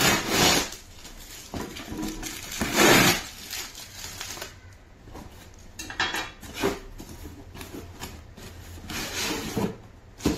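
Cardboard shipping box being opened by hand: scraping and rustling as the flaps are pulled open and the shoebox inside is handled. It comes as several short bursts, the loudest about three seconds in.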